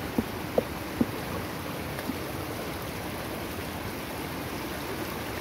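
Steady rush of fast-flowing stream water, with three short sharp splashes in the first second as hands and a cast net are worked in the water.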